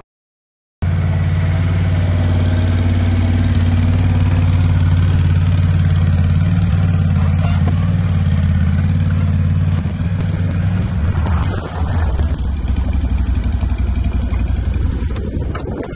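Can-Am Outlander ATV engine running, cutting in abruptly after a second of dead silence. It holds a steady drone, then turns less even from about ten seconds in.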